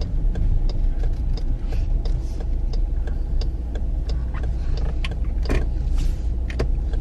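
Dodge Durango R/T driving through snow, heard from inside the cabin: a steady low rumble of the 5.7-litre HEMI V8 and tyres, with irregular light ticks and clicks over it.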